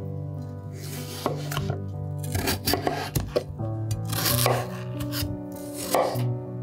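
Knife cutting food on a cutting board: irregular strokes, with a quick run of sharp knocks around the middle, over background music of sustained notes.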